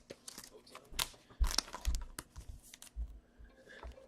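Hockey trading cards and a foil pack wrapper being handled: irregular crinkling and rustling, with a few dull thumps against the table.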